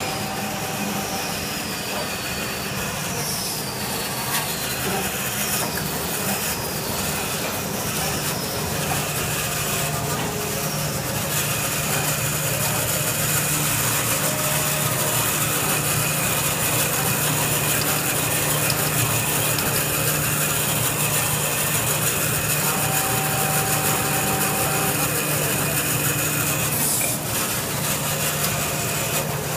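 Automatic towel paper band saw and its conveyor running, with the steady hiss of the saw cutting through paper. A low hum comes in about eight seconds in and drops out near the end, and a few short falling whistles sound in the first few seconds.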